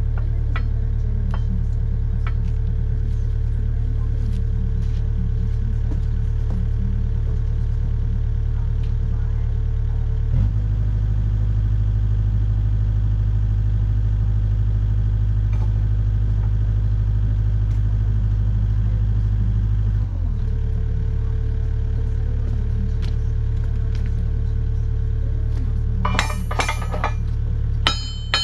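Steady low machine drone, which shifts to a heavier, stronger hum for about ten seconds in the middle and then settles back. Near the end come several sharp metallic clanks with a ringing tail.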